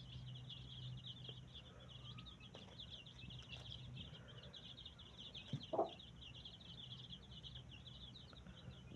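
Many small birds chirping rapidly and without pause in high, short notes, with one brief louder call a little over halfway through. A low steady hum runs underneath.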